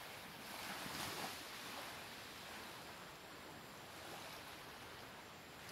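Ocean surf rushing steadily, swelling a little about a second in.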